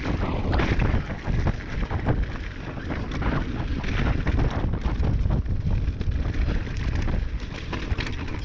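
Wind buffeting the microphone of a camera on a mountain bike descending a dirt trail, with tyre roar and frequent clicks and knocks from the bike rattling over the ground.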